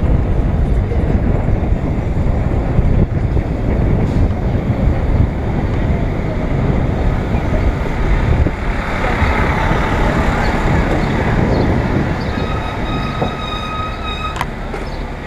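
Wind rumbling on a bike-mounted action camera's microphone over city street traffic noise. Near the end a steady high-pitched squeal lasts about two seconds.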